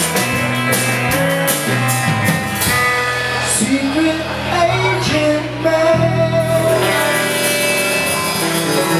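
Live rock band playing: electric guitar, bass guitar and drum kit with regular cymbal hits, and a man singing over it.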